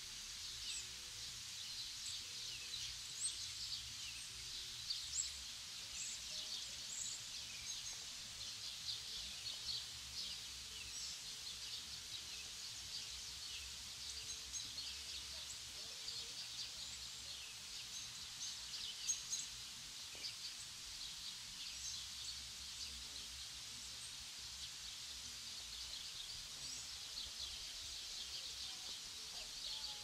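A chorus of small songbirds chirping and twittering, many short overlapping calls coming steadily, with a few louder, nearer chirps standing out.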